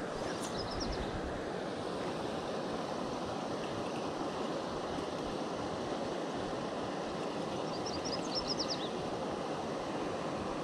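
Steady rush of the South Platte River flowing over rocks, with a few short high chirps about half a second in and again near the end.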